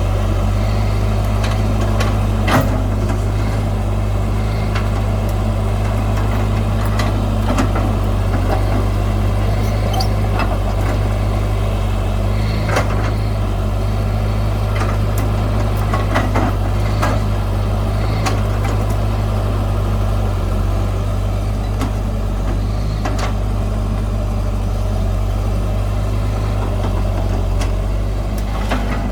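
Heavy diesel earth-moving machinery running steadily with a deep engine hum, with scattered sharp knocks through it.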